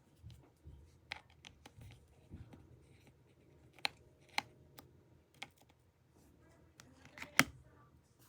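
Scattered light clicks and taps of small repair tools and parts as an iPhone is taken apart, with one louder click about seven seconds in.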